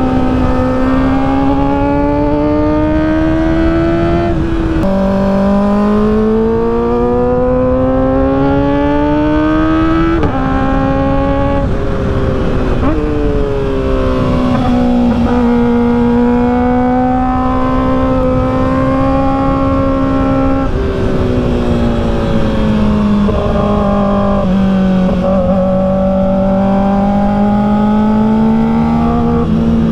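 Kawasaki ZX-4RR's 399 cc inline-four engine under way, its note climbing steadily as it pulls through each gear and dropping abruptly at each of several gear changes. A rushing noise from riding runs underneath.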